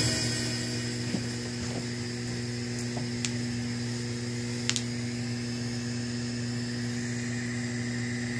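Low, steady electrical mains hum from powered audio equipment left switched on, with a few faint clicks.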